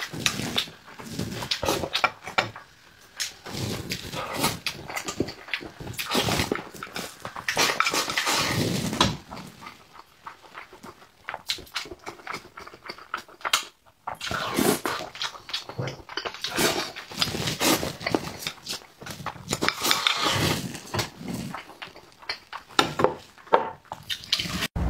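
Close-miked eating of spicy braised fish: chewing, lip-smacking and slurping, with many irregular wet clicks.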